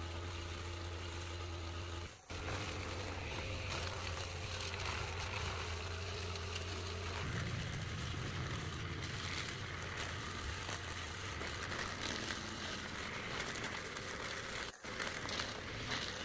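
Petrol brush cutter engine running steadily as its head cuts through grass and weeds, with two very short breaks, one about two seconds in and one near the end.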